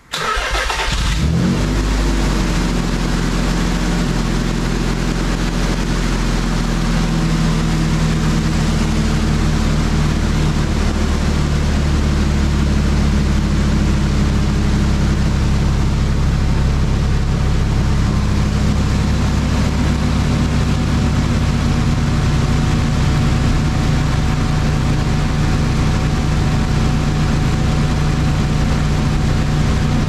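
Nissan 300ZX Z32's 3.0-litre VG30DE V6 started: a brief crank, the engine catches about a second in with a short rise in revs, then settles into a steady idle. It is running on new fuel injectors fitted to cure a misfire.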